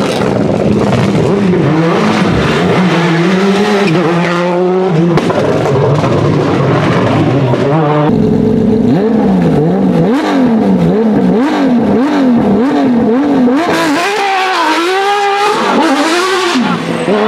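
Rally car engines at high revs across several shots. Near the middle an engine's revs swing up and down rapidly, over and over, for several seconds.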